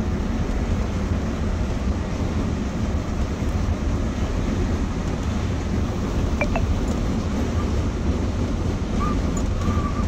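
Steady running noise of a Volvo B9R coach at highway speed, heard from inside the driver's cabin: a low engine and road drone with wind noise over it.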